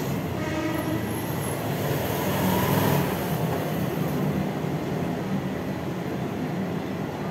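A person eating instant noodles with a fork, slurping and chewing, over a steady rumbling background noise.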